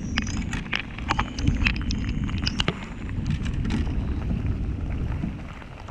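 Wind buffeting the microphone as a steady low rumble, with scattered sharp knocks and taps over the first three seconds or so.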